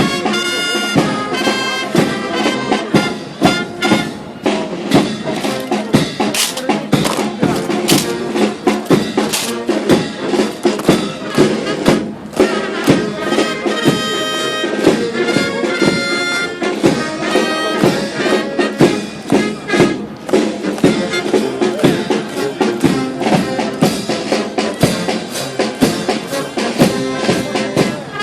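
A brass band playing, with held horn notes over sharp, steady percussion beats.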